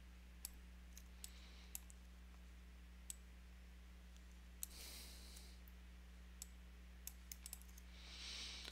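Faint computer mouse clicks, about a dozen at irregular intervals and a quick cluster around seven seconds in, over a low steady electrical hum. Two soft rushes of hiss come about five seconds in and near the end.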